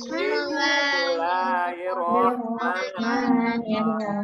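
Many children's voices reciting the Arabic prayer for breaking the fast in unison, in a sing-song chant, heard through a video call's mixed audio.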